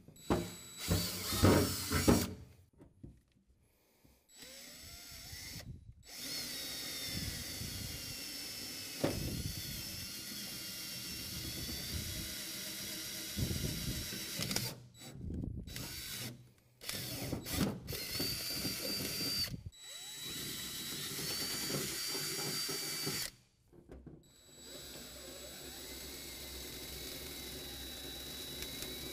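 DeWalt cordless drill boring holes through the sheet-metal truck bed floor with a twist bit, with a steady high motor whine. A few short loud bursts come first, then long runs of drilling stopped and restarted several times.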